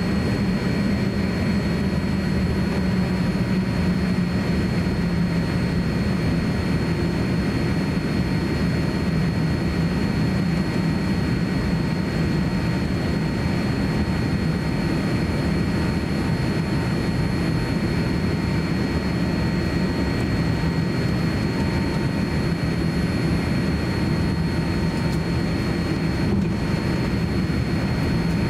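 Cabin noise inside a Boeing 787-9 as it taxis on its GE GEnx-1B turbofans: a steady low hum with faint steady high whining tones above it.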